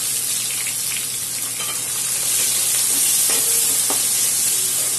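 Freshly added sliced onions sizzling steadily in hot oil in a steel kadhai, with a few light scrapes of a steel ladle stirring them.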